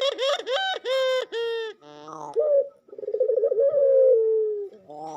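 A dove's laughing call: a quick run of short, bright notes, then, about two seconds in, a long rolling trilled coo that slides slowly down in pitch, with another call starting near the end.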